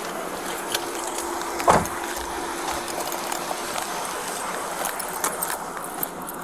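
Roadside night ambience picked up by a body-worn camera: a steady rush of road noise with scattered light clicks and rustles, and one knock a little under two seconds in.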